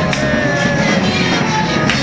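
Music with a full band sound, guitar and drums, playing steadily.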